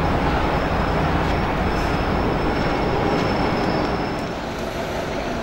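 Loud, steady outdoor rumble of city noise with a faint high whine over it; the rumble eases a little and the whine stops about four seconds in.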